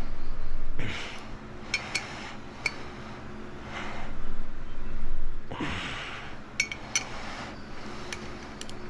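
Click-type torque wrench on the rear sprocket bolts giving short sharp metallic clicks, a pair about two seconds in and another pair about seven seconds in, as each bolt reaches its set torque. Loud breaths between the pulls.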